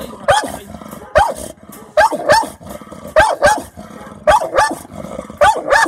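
An American Bully barking on guard: about ten short, loud barks, mostly in quick pairs, roughly one pair a second.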